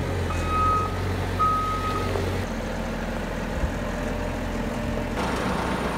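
Caterpillar telehandler's reverse alarm giving two long beeps on one high tone as it backs up, then falling silent about two seconds in, over its diesel engine running steadily.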